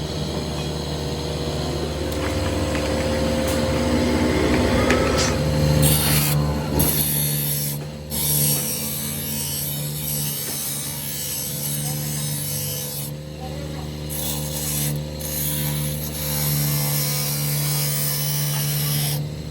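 Workshop machinery running with a steady low hum, over a continuous scraping and rubbing of metal being worked.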